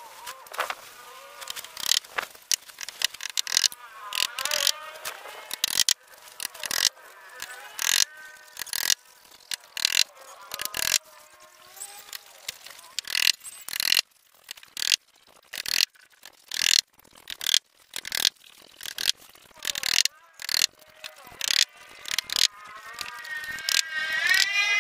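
Hammer driving nails into a plywood frame: a long irregular series of sharp taps, two or three a second.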